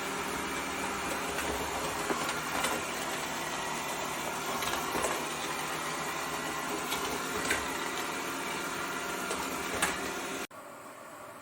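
ECOVACS DEEBOT T20 OMNI robot vacuum system's motor running steadily, with a few small clicks and rattles over it, then cutting off suddenly near the end.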